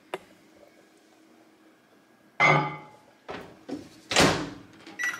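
Over-the-range microwave being loaded: a few knocks as the door is opened and the bowl goes in, then the door shut with a loud thunk about four seconds in, and a short beep near the end.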